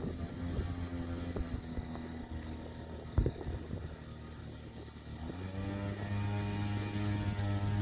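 Radio-controlled model plane's motors droning in flight, a steady hum that changes pitch and grows louder about five seconds in. Wind buffets the microphone, with a sharp thump about three seconds in.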